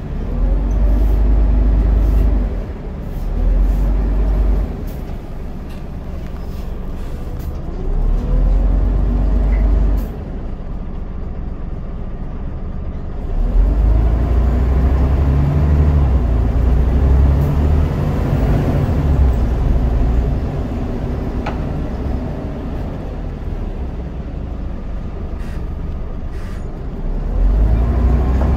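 Scania DC9 9.0-litre Euro 3 diesel engine of a Scania N94UD double-decker bus, heard from inside the passenger saloon, pulling in surges with rising pitch as the ZF Ecomat automatic gearbox takes the bus up through its gears. The engine drops back about ten seconds in, then pulls hard again for a long stretch from about thirteen seconds.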